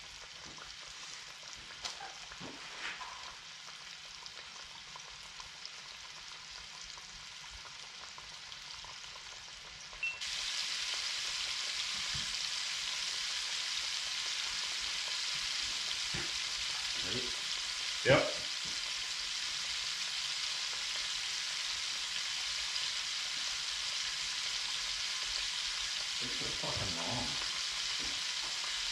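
Floured bluegill deep-frying in a pot of hot oil, a steady sizzle that turns louder and brighter about ten seconds in. A few short faint clinks or knocks come over it, the sharpest a little after halfway.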